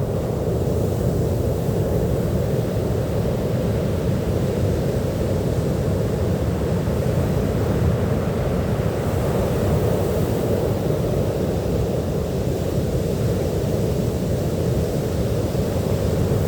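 Ocean surf on a beach: a steady, low rumble of waves with no distinct breaks standing out.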